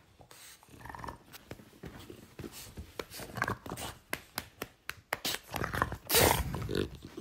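French bulldog making short vocal noises while being stroked, with the loudest one about six seconds in, amid rustling and handling noise from hands on fur and bedding.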